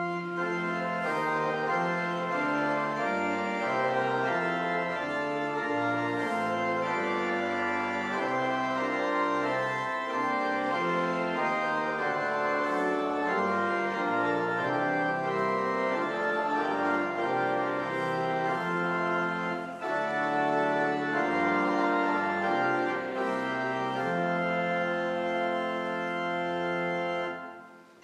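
Church organ playing a slow hymn tune in sustained chords that change every second or so; it pauses briefly near the end, then starts again.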